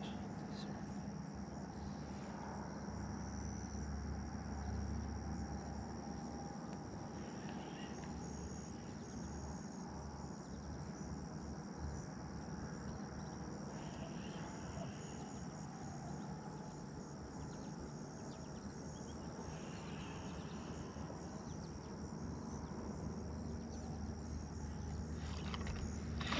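Insects chirring steadily in one high, continuous tone over a low outdoor rumble.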